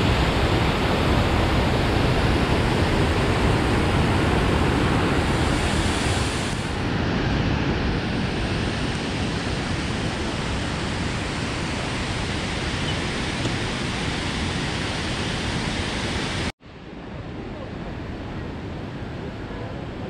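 Water rushing steadily over the cascades of the Krka waterfalls, a dense, even noise. It cuts off abruptly about three-quarters of the way through and is replaced by a softer rush of water.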